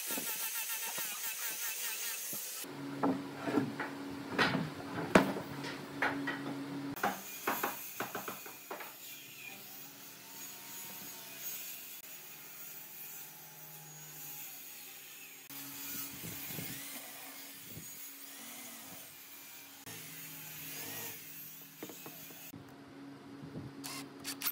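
An angle grinder with a sanding disc runs against log wood, then cuts off about three seconds in. After that come several sharp wooden knocks and a quieter stretch with a steady low hum. Near the end there is a short burst from a cordless impact driver driving a screw.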